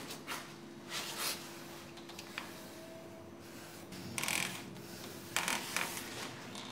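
Faint rustling and rubbing, a few soft brushes of sound, over a steady low hum.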